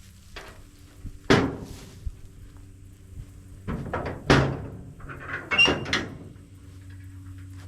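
Heavy metal clanks and thunks, four or so separate knocks a second or two apart, as scrap farm equipment is shifted on a trailer.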